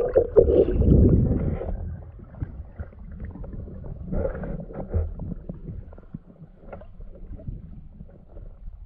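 Muffled underwater noise picked up by a diver's camera as he swims: low water rumble and gurgling, loudest in the first two seconds, then quieter with scattered small clicks and knocks.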